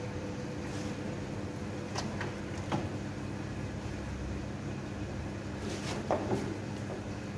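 Scattered metallic clicks and knocks of a hand tool and hands working on the mounting of a mixer's electric motor, a few seconds apart, over a steady low hum.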